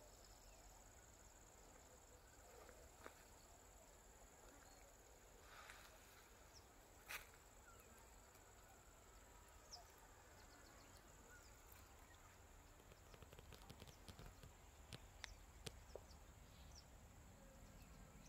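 Near silence: faint outdoor ambience with a steady high-pitched drone, a few soft clicks and a couple of brief high chirps.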